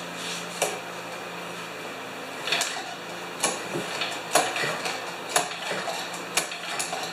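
Light metallic clinks and knocks with short scraping sounds, roughly once a second, as the snowblower's starter rope and handlebar parts are handled.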